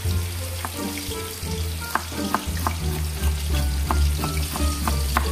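Tilapia frying in hot oil with a steady sizzle, while a knife slices ginger on a wooden cutting board, its sharp knocks on the board coming two or three times a second from about two seconds in.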